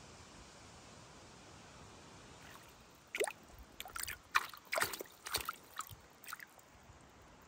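Water splashing and dripping: a quick run of splashes and drips, starting about three seconds in and lasting around three seconds, over a faint steady hiss.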